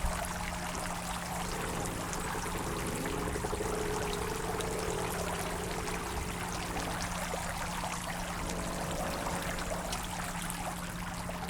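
Clear spring water pouring and splashing steadily through a turning wooden waterwheel. From about a second and a half in to about six seconds, a faint, drawn-out, wavering squeak of the wheel sounds over the water.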